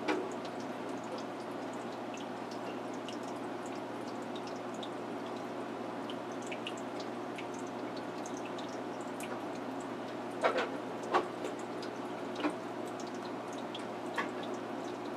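Aquarium water trickling and dripping over a steady hum, with scattered small drips throughout. A few louder knocks come about two-thirds of the way through.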